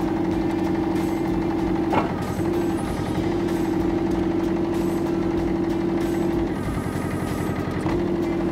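Yanmar SV08 mini excavator running, its engine and hydraulics working as the boom, arm and bucket are moved. A steady whine drops out briefly about two seconds in and again for over a second near seven seconds, with a single knock at about two seconds.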